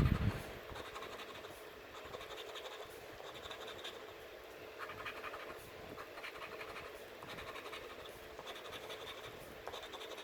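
Scratch-off lottery ticket being scratched, repeated short rasping strokes rubbing off the latex coating.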